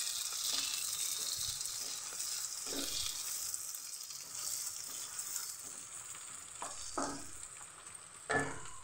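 Cubed onion, garlic, ginger and green chilli sizzling in hot oil in a frying pan, with a wooden spatula scraping the pan a few times as they are stirred.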